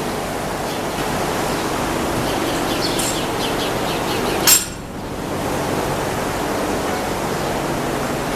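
Steady rushing noise in a dairy barn. A quick run of light clicks comes about three seconds in, and one sharp clink about halfway through.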